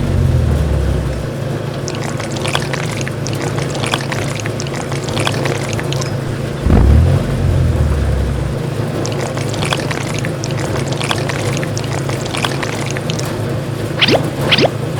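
A small motor runs steadily, with scattered clicks and a pouring, trickling sound over it. About seven seconds in there is a brief deep surge, and several sharper clicks come near the end.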